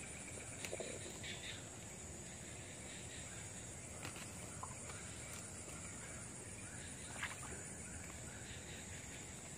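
Faint swamp-forest ambience: a steady high-pitched insect drone, with a few faint, brief sounds scattered through it.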